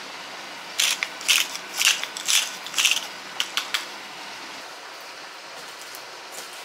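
Hand-twisted pepper mill grinding black pepper in about five quick grinding bursts, then a few short clicks.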